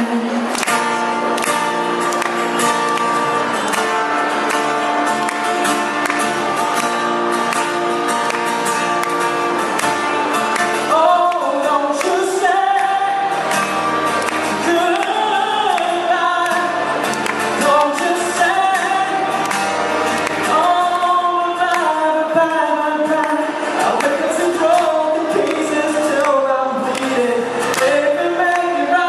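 Live music with singing: held chords for roughly the first ten seconds, then a sung melody that slides up and down over them from about eleven seconds in, over a steady beat.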